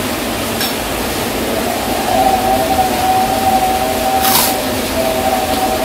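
Heavy rain falling as a steady hiss, with one crisp crunch of a bite into a fried cracker (kerupuk) about four seconds in.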